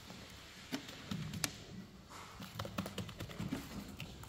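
Irregular light clicks and taps of a hand laminating roller being worked over wet resin-soaked fiberglass mat on a boat hull.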